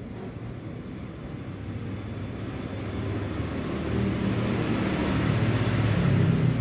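Domestic cat purring while being stroked, a low rhythmic rumble that grows steadily louder over the second half.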